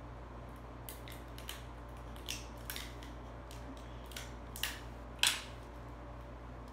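Clear adhesive tape being pulled and torn while taping string to paper: a series of short crackly rips, the loudest and longest about five seconds in.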